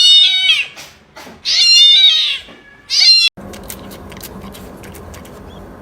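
A cat meowing loudly three times in long, wavering calls. A little over three seconds in, the sound cuts abruptly to a steady low hum with scattered faint clicks.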